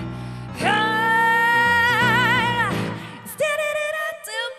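Female pop singer's voice holding one long wordless note with vibrato coming in partway through, then starting a second shorter note, over a pop backing track.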